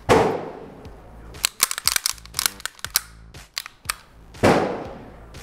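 Reassembled Beretta 92 pistol being worked by hand: a sharp metallic clack at the start and another about four and a half seconds in, each ringing briefly, with a run of quicker clicks between them.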